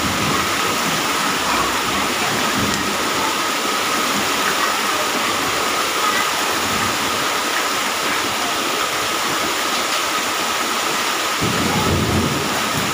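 Heavy rain pouring steadily onto a flooded tiled courtyard, with water splashing and running across the tiles.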